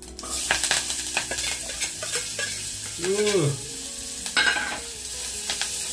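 Chopped onion, green chillies, curry leaves and ginger hitting hot spiced oil in a pressure cooker pan: the oil starts sizzling suddenly as they drop in and keeps frying steadily, with scattered clicks and scrapes of the plate and spatula against the metal pot.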